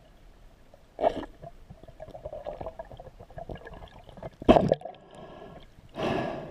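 Water gurgling and sloshing around an underwater camera, with scattered small clicks and three louder bursts of rushing water about a second, four and a half and six seconds in. The one at four and a half seconds is the loudest and shortest.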